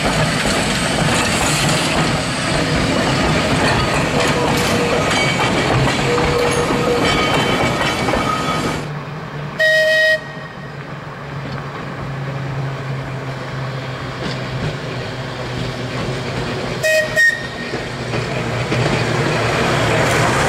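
Manx Electric Railway tramcar and trailer running on the rails, wheels rumbling and traction motors whining as it gathers speed. After a break, a tram sounds its whistle in one short blast, then two quick toots, as another car and trailer start to run past.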